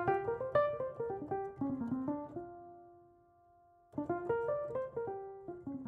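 Piano music: a phrase of notes stepping downward, then a held note that dies away, and a new phrase beginning about four seconds in.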